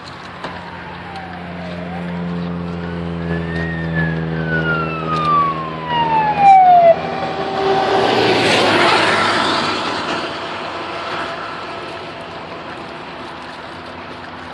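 Emergency vehicle siren wailing down and up over the steady drone of a heavy engine. The wail stops at about seven seconds as the vehicle rushes loudly past, and the road noise then fades.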